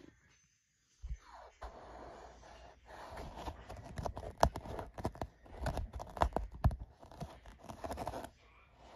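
A cat's paws batting and clawing, a run of scratchy rustling with many sharp taps. It starts about a second in and stops shortly before the end.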